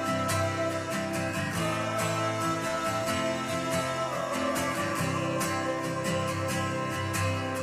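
Background music led by plucked, strummed guitar, with a steady beat.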